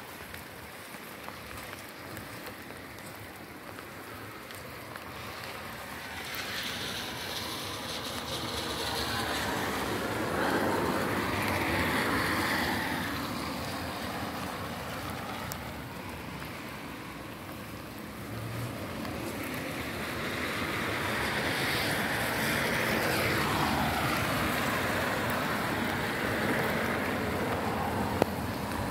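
Vehicles passing on a wet road: tyre hiss on the wet surface swells and fades twice.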